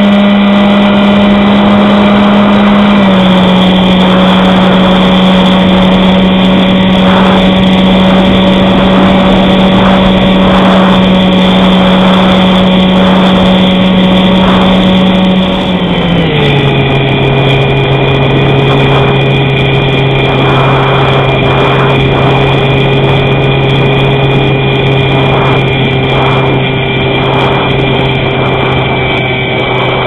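Bixler RC plane's brushless electric motor and pusher propeller running in flight, heard from a camera on the plane with air rushing past. A steady hum that drops slightly in pitch about three seconds in, then drops clearly and gets a little quieter about halfway through as the throttle is eased back.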